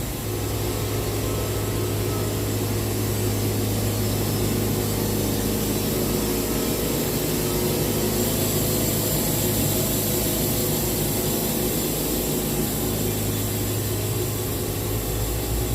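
Sawmill's engine running steadily under load as the saw cuts through a poplar log, with a steady low hum that strengthens just after the start and eases near the end.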